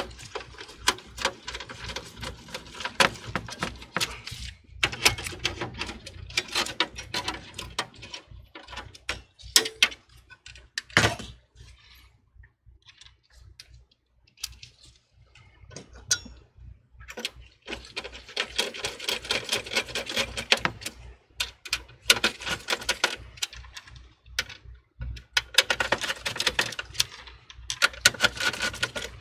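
Dense clicking and rattling of small parts being handled inside a computer case, in several bursts with a quiet gap of a few seconds in the middle.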